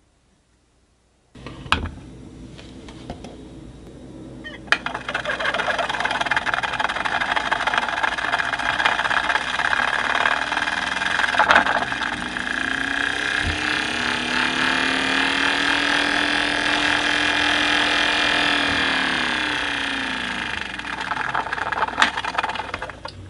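Home-built magnetic stirrer, a computer cooling fan with a magnet on its hub, running with a whirring hum that starts about five seconds in. Its pitch rises as the speed potentiometer is turned up, holds, then falls as the knob is turned back down near the end. A few sharp clicks come along the way.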